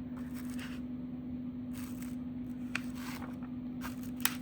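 Paper manual pages being handled and turned, with a few soft rustles and a couple of small sharp clicks near the end, over a steady low hum.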